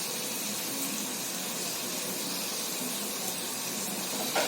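Steady sizzle of mutton chest bones, shallots, garlic and tomatoes frying in sesame oil in a pressure cooker.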